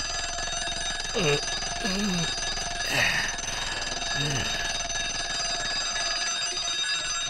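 Twin-bell mechanical alarm clock ringing steadily, with a man's short falling groans several times over it.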